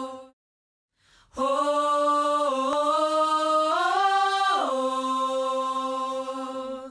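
An unaccompanied singing voice holding long, steady notes. It breaks off for about a second near the start, comes back, rises a step in pitch a little past halfway, then drops back and holds the lower note.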